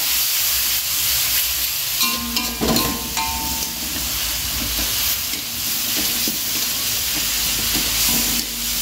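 Chopped chilli and shallot spice paste sizzling in an aluminium wok, with a steady frying hiss. A metal spatula stirs and scrapes it against the pan, giving occasional faint clicks.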